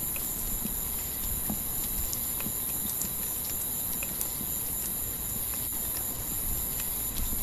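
Night wildlife ambience: a steady, high-pitched chorus that does not let up, with scattered faint ticks.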